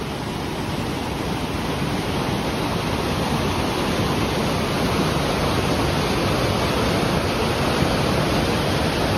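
Mountain stream rushing over rocks: a steady rush of white water that grows a little louder over the first few seconds.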